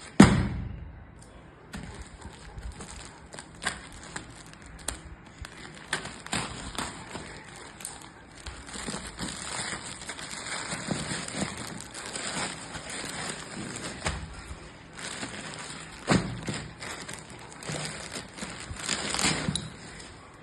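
Packaging being handled and opened: rustling and crinkling with scattered taps and clicks, and one loud thump at the very start.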